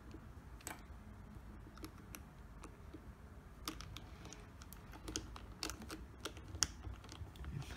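Plastic pieces of a 4x4 puzzle cube clicking and tapping as an edge piece is pushed into place by hand. The clicks are faint and irregular, a little more frequent in the second half.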